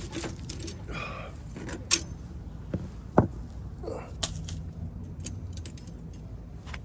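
A few knocks and clacks of objects being handled and moved about, the sharpest knock about three seconds in.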